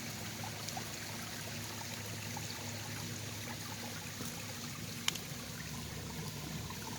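Water from a pump-fed garden pond waterfall trickling and splashing steadily over rocks, with one sharp click about five seconds in.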